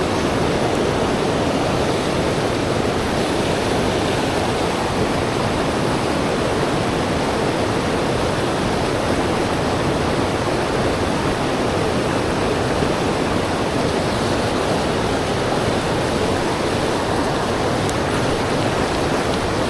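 Steady rush of fast-flowing stream water, an even roar with no breaks.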